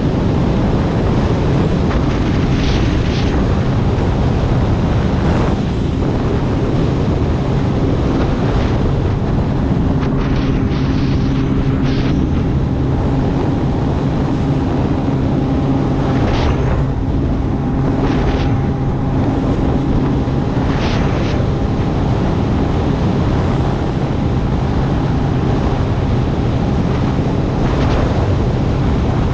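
Yamaha VX Deluxe WaveRunner running steadily at cruising speed, its engine a constant drone under heavy wind buffeting on the mounted camera's microphone and the rush of water. Short hissing swells of spray come several times.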